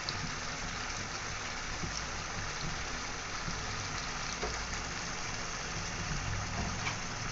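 Pieces of spiced beef frying in hot oil in a pan, sizzling steadily with a few small pops: the meat is being fried down with its spices (kosha stage). A low steady hum runs underneath.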